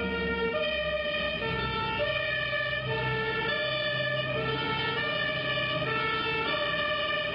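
Several German two-tone emergency vehicle sirens (Martinshorn) sounding together out of step, each switching between a high and a low note about every 0.7 seconds, with a vehicle engine running underneath.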